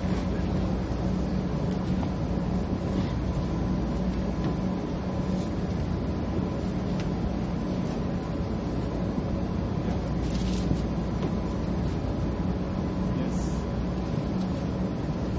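Steady drone of a ship's engines and machinery, with a constant low hum.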